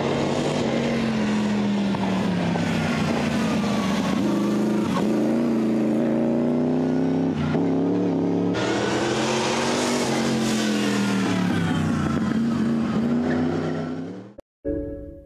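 Vintage racing car's engine running hard, its revs rising and falling through several gear changes, then fading out near the end.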